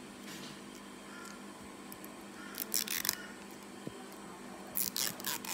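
Lip liner pencil handled close to the microphone to make ASMR sounds: two short crackly scratching bursts, one about two and a half seconds in and one near the end, over a faint steady hum.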